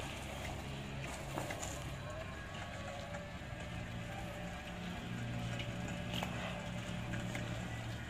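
Electric drive motors of a homemade remote-controlled four-wheel-drive mower chassis humming as it drives over concrete. The hum shifts in pitch a few times, with faint ticks scattered through it.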